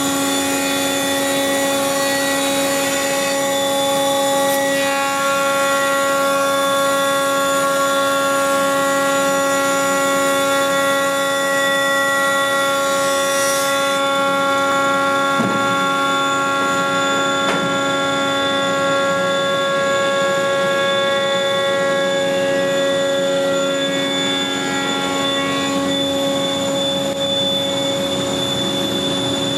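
Leadermac Super Planermac four-sided planer running, its spinning cutterheads giving a steady whine of several tones at once. A high hiss over it stops about halfway through.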